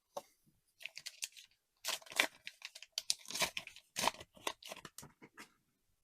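Crinkly plastic or foil trading-card packaging being torn open and handled: a run of short crackling tears and rustles starting about a second in and stopping near the end.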